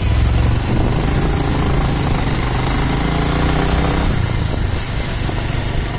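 Motorcycle engine running at low revs, its pitch rising and falling as the bike is ridden slowly; the engine note eases off about four seconds in.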